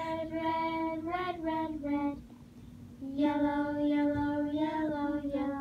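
A child's voice singing long held notes of a simple tune in two phrases, with a short pause between them, over a faint steady low hum.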